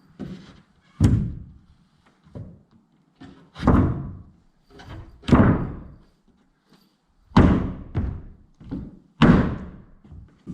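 A series of heavy thunks, five loud blows about every two seconds with lighter knocks in between, each ringing out briefly.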